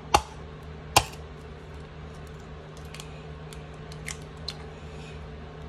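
An egg knocked twice against the rim of a plastic measuring cup, two sharp cracks with the second, about a second in, the louder. A few faint ticks follow as the shell is pulled open.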